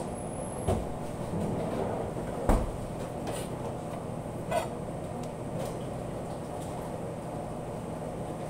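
Kitchen background with a steady machine hum, broken by a few knocks and clinks of dishes and utensils; the loudest knock comes about two and a half seconds in.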